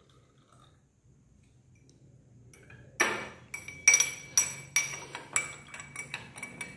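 Metal spoon stirring in a drinking glass, clinking against the glass about twice a second with a bright ring, starting about three seconds in.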